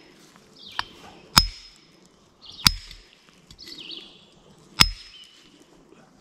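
A hammer tapping on the chisel end of a brick hammer set on a geode: about four light metal-on-metal clinks, each with a short ring, struck to crack the geode open.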